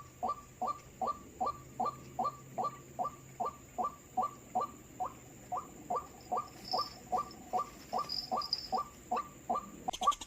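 White-breasted waterhen calls: a fast, even series of short notes, about two and a half a second, each falling in pitch. Near the end the notes come faster and choppier.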